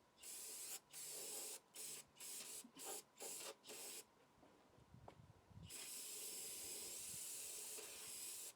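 Aerosol spray can hissing in about six short bursts, then one long continuous spray that starts a little before six seconds in.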